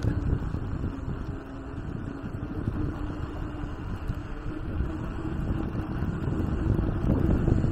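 Wind buffeting the microphone of a camera on a moving bicycle, with a low rumble that grows louder toward the end.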